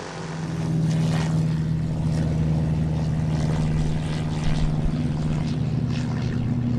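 Single-engine propeller floatplane at take-off power, lifting off the water and climbing away. The engine and propeller drone is steady and grows louder about a second in.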